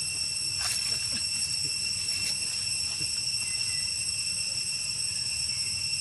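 Steady, high-pitched insect drone, with a low rumble beneath and a couple of faint clicks.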